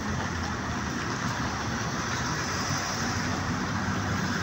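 Steady street noise of road traffic going by, with a low engine hum rising a little near the middle.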